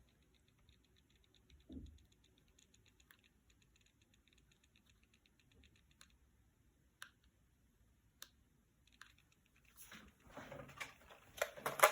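Faint, rapid ticking from a radio-controlled truck's receiver for the first few seconds, then a few separate sharp clicks and some handling clatter near the end. The ticking is the sign of a faulty receiver, which the owner thinks needs replacing.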